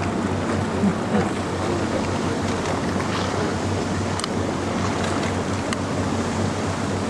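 Motorboat engine running with a steady low hum, under wind and the rush of water against the hull.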